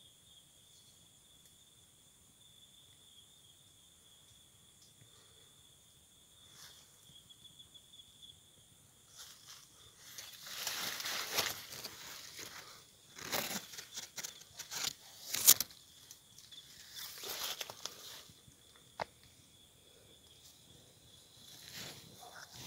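A steady high-pitched insect trill, with rustling and scraping noises that come and go from about ten seconds in, loudest in a sharp snap near the middle.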